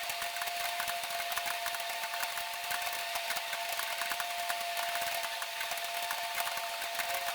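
Many computer keyboards clattering at once as a room of students types continuously during a timed typing test, a dense stream of overlapping key clicks, with a steady high whine underneath.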